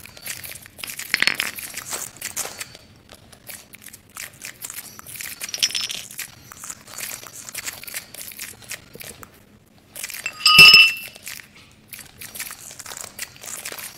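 Irregular crackling, crinkling and light clinking of handled objects, with one loud ringing strike about ten and a half seconds in that sounds with several clear tones.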